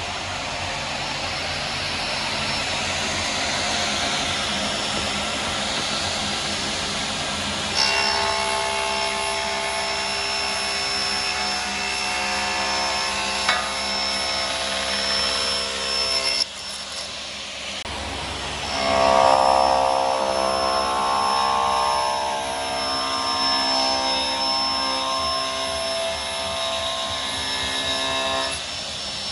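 Sliding table saw running and crosscutting a Russian olive wood and epoxy slab to trim its edge square. It is a steady machine whine with a pitched hum that drops away suddenly a little past halfway, then comes back louder.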